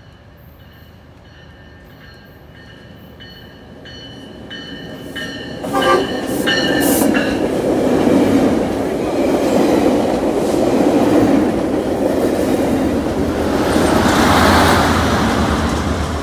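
Metrolink commuter train with bilevel coaches passing close at speed. Its wheels on the rails make a loud, steady rushing rumble that rises sharply about six seconds in. Before it arrives, a bell dings at an even pace.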